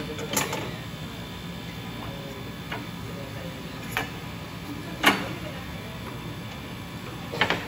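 Steady background hum of factory machinery, broken by four sharp knocks and clacks as hard parts of a towel rack and cardboard cores are handled. The loudest knock comes about five seconds in, and the last is a quick double near the end.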